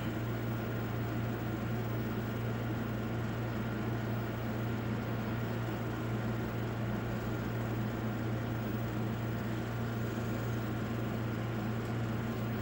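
Steady low hum under an even hiss, unchanging: room background drone.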